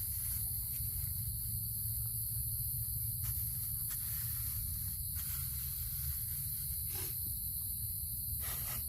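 Steady chorus of night insects, an even high-pitched hiss-like trill, over a low steady hum, with a few faint ticks.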